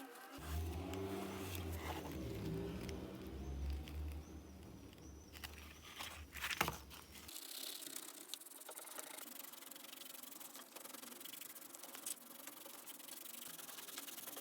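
Abrasive rubbing and scraping of metal parts being sanded and polished by hand, with a brief clatter of handled parts about six and a half seconds in.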